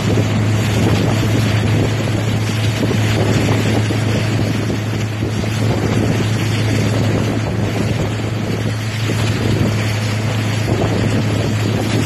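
Wind buffeting the microphone of a moving motorboat, over a steady low engine drone and the rush of water.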